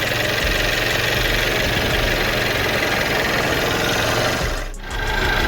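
Mercedes-Benz car engine idling steadily, the car switched on to test a newly fitted light. The sound dips briefly about three-quarters of the way through.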